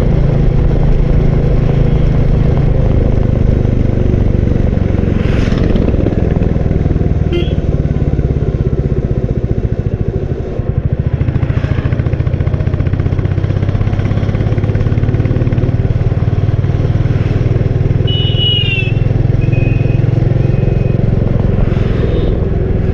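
Royal Enfield Bullet 350's single-cylinder engine running under way, a steady low thump that briefly eases off about ten seconds in and then picks up again. A few short high-pitched tones sound about three-quarters of the way through.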